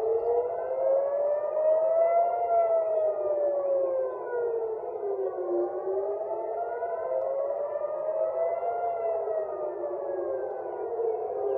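Civil-defence air-raid sirens wailing a missile alert, the pitch slowly rising and falling about once every six seconds. More than one siren is heard, their wails overlapping out of step.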